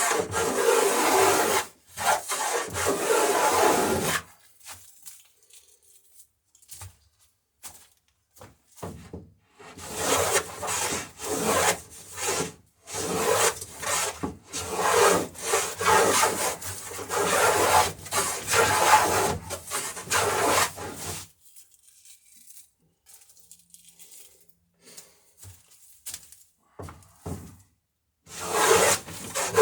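Runs of quick, repeated hand-tool strokes cutting wood, with pauses between the runs, as the plank edges of a wooden dory are bevelled and faired.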